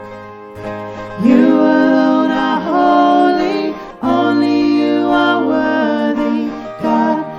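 Worship song music: acoustic guitar with voices singing long held notes that slide up into each new note.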